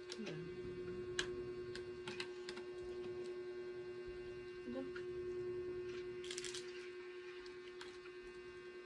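Steady electrical hum on one low tone, with scattered light clicks and crackles of cooked crab shell being pulled apart by hand.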